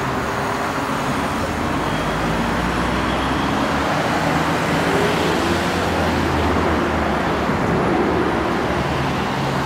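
Steady road traffic noise: a low rumble of vehicles running and passing on a busy street, with faint engine tones rising and falling.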